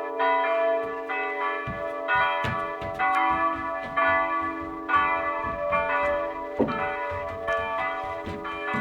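Church bells ringing in a peal, several bells struck one after another about two to three times a second, their tones ringing on and overlapping.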